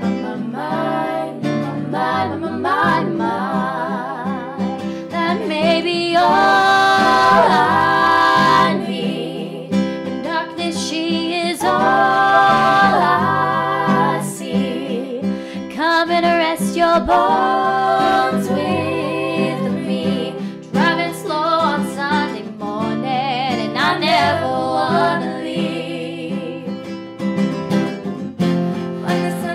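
Female voices singing a song over acoustic guitar, with long held notes, the loudest about six to nine seconds in.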